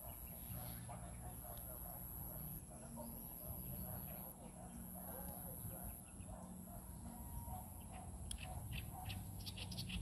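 Rural field ambience: a steady high-pitched insect drone, with a quick run of short bird chirps near the end.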